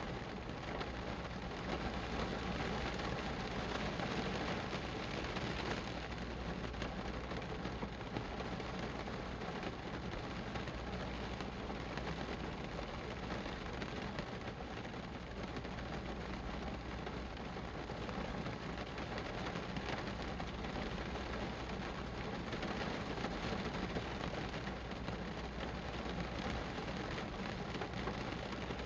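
Steady rain falling: an even hiss with a low rumble beneath it.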